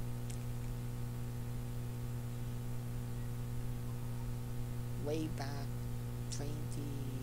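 Steady low electrical hum, with a few soft spoken sounds about five seconds in and again near the end.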